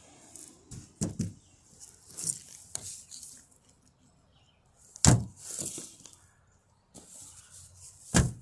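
Handling of a sand-filled plush lizard toy: rustling and a few soft knocks and thumps, the loudest about five seconds in and another near the end.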